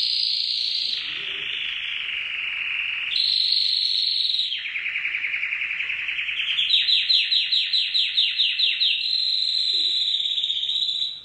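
Domestic canary singing one long unbroken song: a chain of rapid trills, each held at one pitch before switching to another, with a stretch of quick repeated rising notes, about five a second, in the middle.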